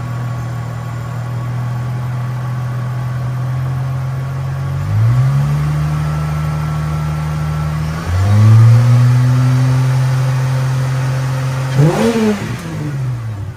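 Holden VY Commodore's Ecotec V6 running after an engine-out reseal and rebuild: revs rise about five seconds in, rise again and hold at a higher pitch about eight seconds in, then a quick blip near the end before they drop back and the sound cuts off.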